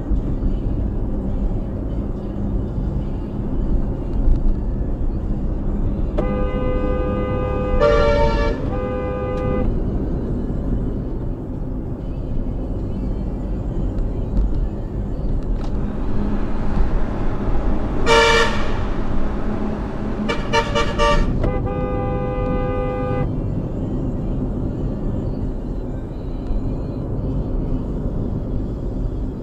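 A vehicle horn sounding in several goes: a held blast broken by short taps about six seconds in, a single sharp blast midway, then a quick run of short taps and another held blast. Steady road and engine rumble runs underneath, heard from inside the car.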